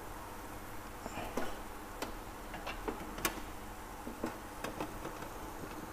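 Wooden chopsticks clicking and tapping against a metal wire rack and pieces of roasted pork belly as they are turned over: light, irregular clicks, one or two a second, over a faint steady hum.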